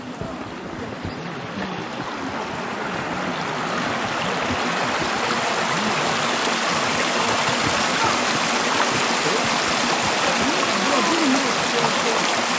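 Hot-spring stream running over rocks. It grows louder over the first few seconds, then runs steadily.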